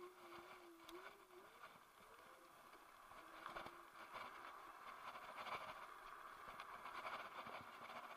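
Faint road and tyre noise from an electric scooter rolling over rough asphalt, with small knocks and rattles from bumps; it grows louder over the second half as speed picks up. A thin wavering tone drifts up and down for the first couple of seconds and again briefly.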